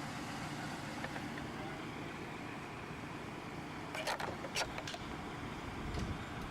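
An engine running steadily with a low rumble, with a quick cluster of four or five sharp knocks about four seconds in.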